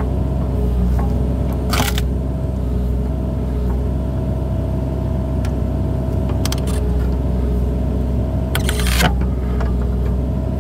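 Excavator engine running steadily with a steady hum as it drives a hydraulic splitter's wedge blade down into a hardwood log. Two short cracking bursts, about two seconds in and again near nine seconds, as the log gives way under the blade.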